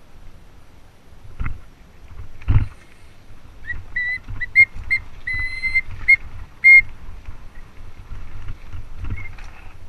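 Mountain bike disc brakes squealing in a string of short, high, fixed-pitch squeals, one held longer, as the bike is braked on a rocky descent. Two knocks of the bike over rocks come before the squeals, over a steady rumble of tyres and wind.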